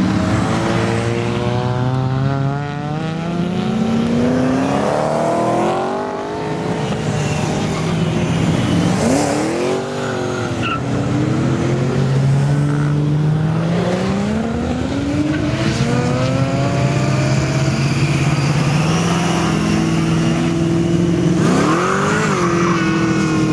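Cars accelerating hard past on a race circuit one after another, their engines revving up in pitch through the gears. About ten seconds in one car passes close, its engine note rising and then falling, and near the end another revs up sharply.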